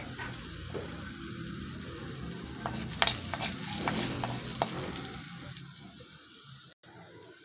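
Chopped garlic sizzling in hot oil in a metal wok as it is stirred and scraped, with scattered clicks and one sharp clack about three seconds in. The sizzle dies down over the last couple of seconds.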